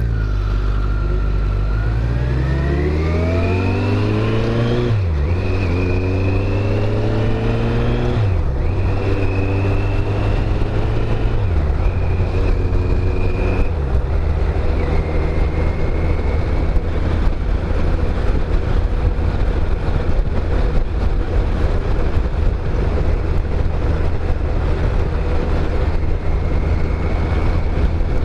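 Kawasaki GTR1400's inline-four engine pulling away from a standstill. Its pitch climbs and drops back at each of four upshifts over about the first fourteen seconds, then it settles to a steady cruise under wind noise.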